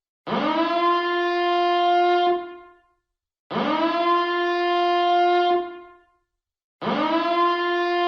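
Nuclear power plant reactor alarm siren sounding in repeated blasts. Each blast sweeps quickly up in pitch to a steady, buzzy horn tone, holds it for about two seconds, then fades out. A new blast starts about every three and a quarter seconds, three in all, the last still sounding at the end.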